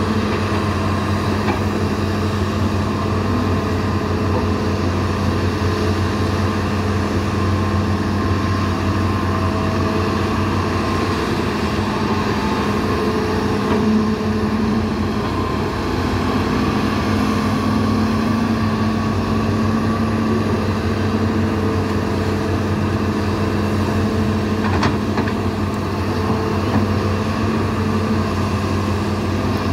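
Diesel engines of Hitachi and Sumitomo hydraulic excavators running steadily as they dig. A continuous engine hum, with higher tones that rise and fall as the machines work, and a sharp click near the end.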